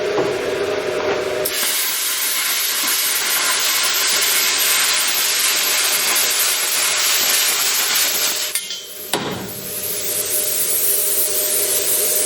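Plasma cutter cutting sheet steel: a loud, steady hiss of the arc and air jet that starts about a second and a half in, breaks off briefly around nine seconds and then picks up again, over the machine's steady hum. The voltage and air are set a little too high, as the operator admits.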